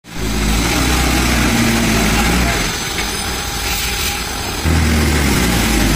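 Tata SE1613 tipper truck's diesel engine working hard as the loaded truck maneuvers. Its deep note eases off a little from about two and a half seconds in, then pulls hard and loud again near five seconds.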